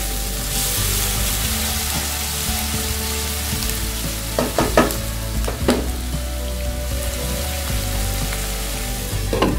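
Chopped onions and ginger-garlic paste sizzling in hot oil in a nonstick kadai, frying until translucent, stirred with a wooden spatula. A few short scrapes and taps of the spatula on the pan come around the middle.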